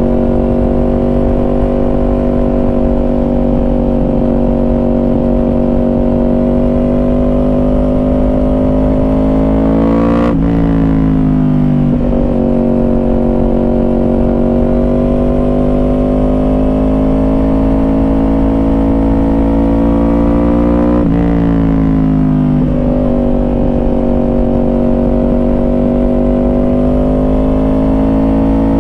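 Yamaha R1 inline-four engine through a Yoshimura exhaust, running under steady throttle. Its pitch climbs slowly, drops off sharply about ten seconds in and again about twenty-one seconds in, then builds back up. Steady wind rush sits underneath.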